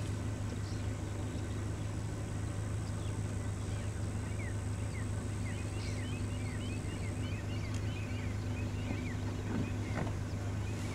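Steady low hum of an idling vehicle engine, with birds chirping in quick short calls from about four seconds in.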